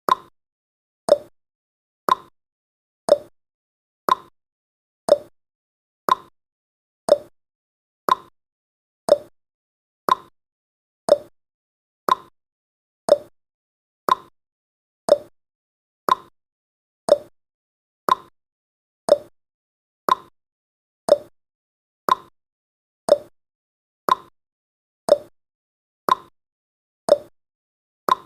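Countdown timer's ticking sound effect: a short, sharp tick once a second, like a clock.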